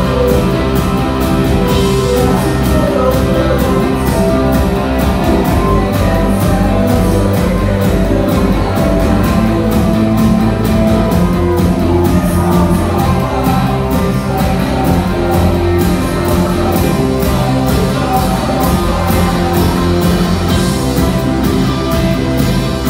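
Live indie rock band playing loudly, heard from the side of the stage: electric guitar, keyboard and drum kit, with cymbals struck in a fast, steady pattern.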